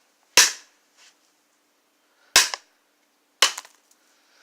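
Three sharp blows striking a phone's battery with a hand tool, about a second and a half apart; the last one is followed by a couple of quick smaller clicks.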